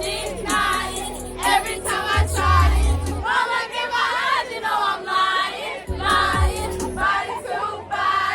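Music with sung vocals and a deep bass that slides down in pitch twice, heavy around two to three seconds in, mixed with many voices of a crowd singing or shouting along.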